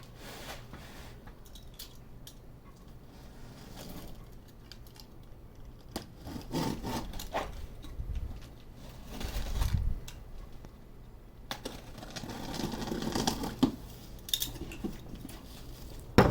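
Cardboard shipping carton being handled and opened: on-and-off rubbing and scraping of cardboard, with a dull thump about ten seconds in.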